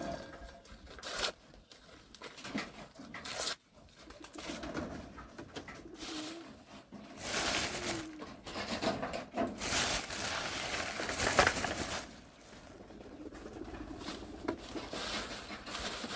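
Newspaper being torn and crumpled by hand into small pieces, in bouts of ripping and rustling that are heaviest about halfway through. A low cooing is heard faintly underneath.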